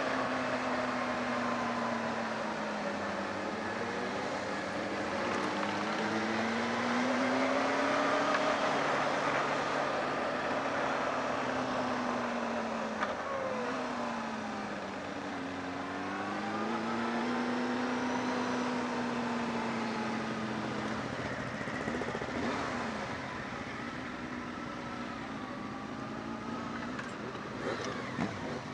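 Honda CB600F Hornet's inline-four engine heard from the rider's position under way, its pitch rising and falling with throttle and gear changes over a steady rush of wind noise. Near the end it settles lower and quieter as the bike slows.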